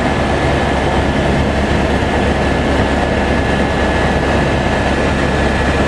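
Helicopter engine and rotor noise, a steady loud rumble with a thin steady high-pitched whine.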